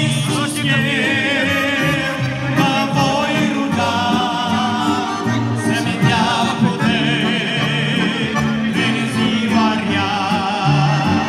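Male voice singing a Romanian gospel song with heavy vibrato over instrumental backing with a stepping bass line.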